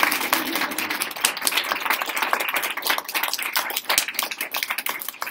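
Applause from a small audience, many hands clapping quickly and irregularly, some of them close by.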